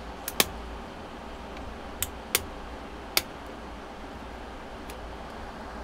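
Back-cover clips of a Samsung Galaxy Tab S SM-T800 tablet snapping loose as a pry tool is twisted along the edge: sharp clicks, a close pair near the start, two more about two seconds in, another a second later and a faint one near the end. A steady low hum runs underneath.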